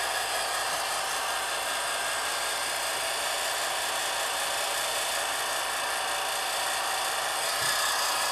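Film projector running: a steady mechanical whirr with hiss.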